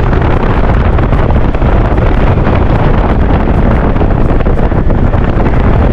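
Wind buffeting the microphone of a moving motorcycle, with the motorcycle's engine and road noise underneath; loud and steady.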